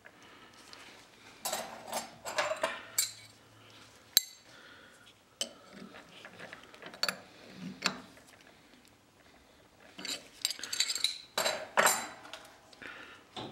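Irregular metal clinks, clicks and light clatter from hand-handling small tooling at a hobby CNC mill: a cutting bit being fitted and tightened in the spindle collet. The clinks come in bursts, with a busier run of clatter near the end.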